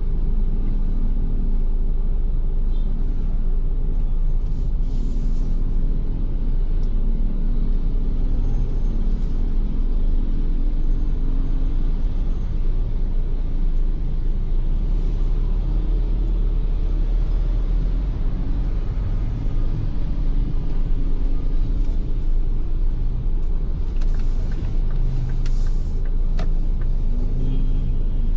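Steady low rumble of a Ford Everest SUV driving on wet roads, engine and tyre noise heard from inside the cabin, with a few brief, faint hisses.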